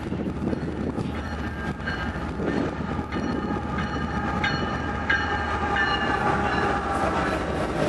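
Diesel-hauled freight train approaching and passing close by: the locomotives' engines rumble under a steady whine that grows louder and then drops slightly in pitch as they go past. Wheels clatter on the rails as the first covered hopper cars follow.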